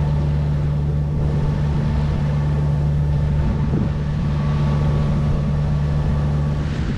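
Sailboat's auxiliary engine running steadily under way while motor sailing, a constant low hum with the wash of water along the hull.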